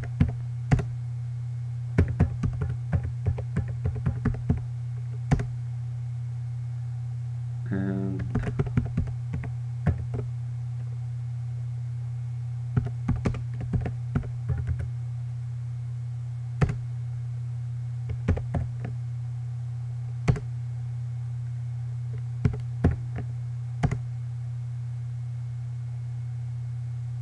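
Computer keyboard typing in short bursts of keystrokes with pauses between them, over a steady low hum.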